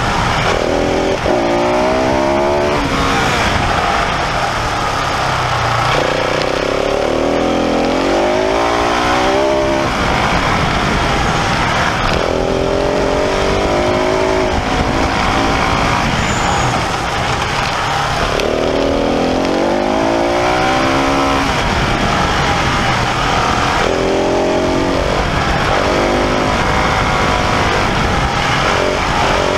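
Husqvarna 701's single-cylinder engine being ridden hard: it revs up through the gears, then drops back as the rider shuts off for the bends, over and over. Steady wind rush runs underneath.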